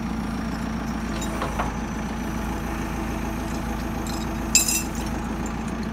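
JCB backhoe loader's diesel engine idling steadily. A short metallic clink from the lifting chain hooked to its bucket comes about four and a half seconds in.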